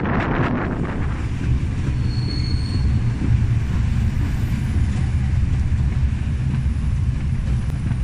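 Passenger carriages of a heritage steam train running on the track, heard from an open carriage window: a steady low rumble of wheels on rail, with wind buffeting the microphone in the first second and a brief high wheel squeal about two seconds in.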